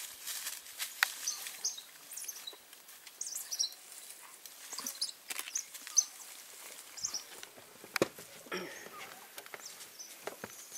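African wild dog pups scuffling and rolling in dry leaf litter and grass, with irregular rustles and small knocks. Short high chirps come and go throughout, with a brief lower call about two-thirds of the way in.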